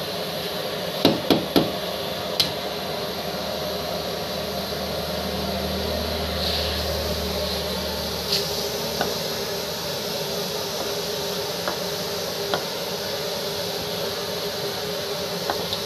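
A flat metal scraper knocking on a wooden work board: three sharp knocks in quick succession about a second in and one more a moment later, then a few light taps as crumbly curd cheese is worked on the board, over a steady background hum.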